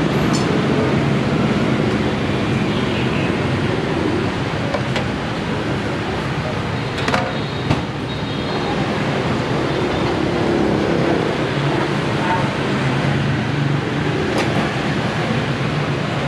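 Steady rushing noise of a large noodle pot boiling hard on its gas burner, with a few sharp metal clinks, two close together about seven seconds in.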